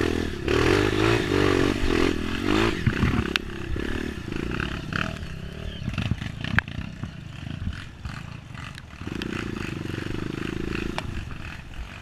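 Honda CRF230 trail bike's single-cylinder four-stroke engine revving up and down unevenly, with sharp knocks and clattering from the bike over rough ground. Near the end the engine holds a steadier note for about two seconds.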